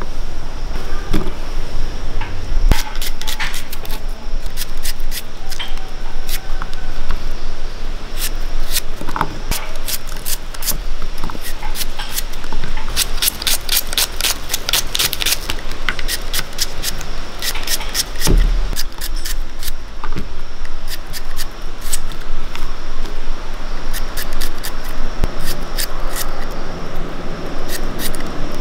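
Small knife slicing shallots in the hand: a rapid run of crisp clicks as the blade cuts through the bulbs and slices drop onto a clay plate, thickest about halfway through. A steady hiss of background noise lies under it.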